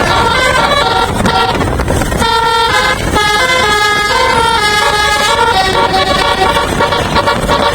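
A bus's telolet musical air horn playing a tune of held notes that step from pitch to pitch, over a steady low rumble.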